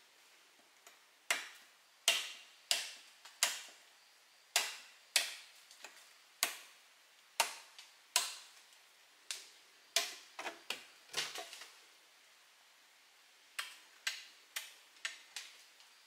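A hand tool striking wood over and over, sharp single knocks about one to two a second, then a pause and a shorter run of about five more strikes near the end.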